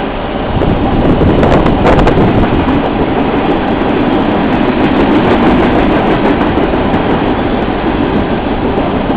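Freight train cars rolling past on the rails: a steady rumble of steel wheels, with a rapid run of sharp clicks and clatter as the wheels cross rail joints. It grows louder just under a second in.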